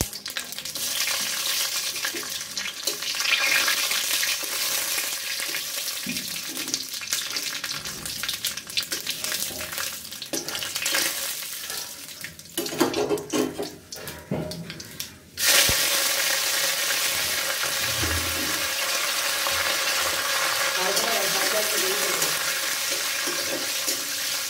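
Hot oil sizzling and crackling in a kadai as cumin seeds and dried red chillies fry in it. About fifteen seconds in, a sudden louder sizzle starts when curry leaves go into the oil, and it stays steady.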